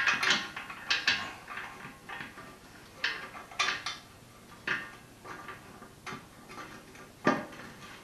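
Light metallic clinks and rattles as a bolt is turned by hand into the corner of a sheet-metal machine stand, the steel parts knocking together. The clinks come irregularly about once a second, with a louder one near the end.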